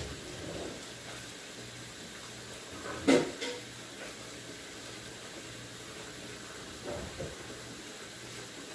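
Kitchen tap running a steady stream of water into a metal pot in a stainless steel sink, an even hiss. A sharp knock about three seconds in, the loudest sound, and a fainter one near seven seconds.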